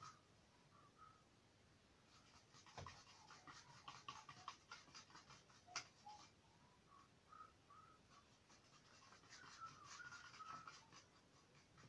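Faint scratching of a paintbrush working paint onto a canvas in quick strokes, in two bursts a few seconds apart, with short snatches of soft whistling under the breath.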